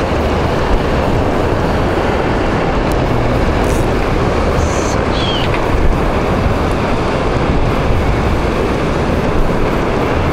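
Steady rushing of wind on the microphone and sea surf below rocky cliffs, with a gusty low rumble. A brief high falling chirp sounds about five seconds in.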